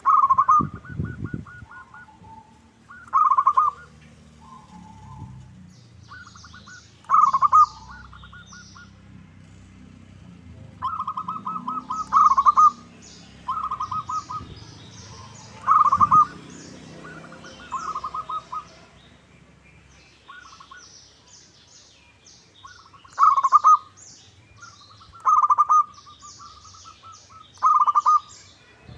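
Zebra doves (perkutut) singing: the rapid, trilled staccato cooing phrase repeated over and over, every one to three seconds. Small birds chirp faintly at a much higher pitch in the background.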